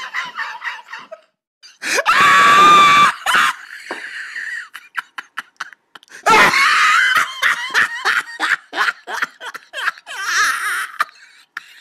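A person screaming in three loud, high-pitched outbursts, the first about two seconds in and the loudest, with stretches of rapid, pulsing laughter between them.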